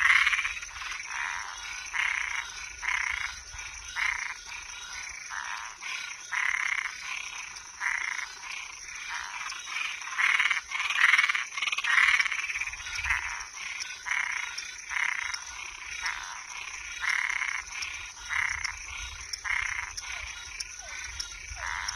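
A chorus of frogs and treefrogs calling at night: short rasping calls repeating about once a second, some louder and nearer than others, over a steady high-pitched drone.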